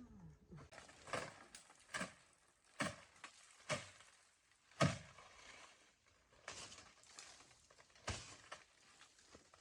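A series of sharp knocks, about one a second at first and then more spread out, with faint rustling between them.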